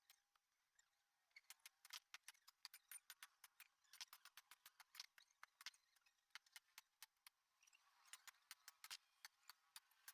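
Faint, irregular sharp ticks and taps, several a second, with gaps of quiet between the clusters.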